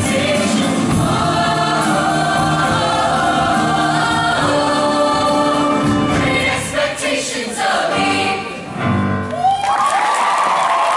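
Large show choir singing a full-voiced ending with accompaniment; about nine and a half seconds in, the music stops and the audience breaks into applause.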